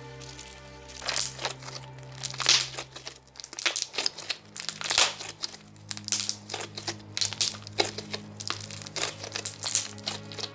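Chewy snow cream slime stretched and pressed by hand, giving off many sharp, irregular pops and crackles; the slime is stiff and a little overactivated. Background music plays underneath.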